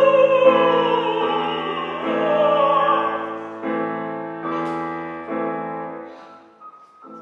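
Operatic singing with piano accompaniment. A singing voice slides downward in pitch over the first few seconds above repeated piano chords. The music then fades, and near the end a rising run of single piano notes begins.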